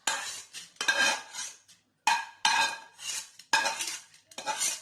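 Metal spoon scraping and knocking against metal cooking vessels as roasted urad dal is scooped into a pressure cooker: about eight sharp clinks, each ringing briefly, at uneven intervals.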